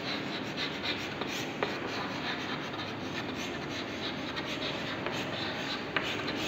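Chalk writing on a blackboard: steady scratching with a few sharp little taps as letters are written.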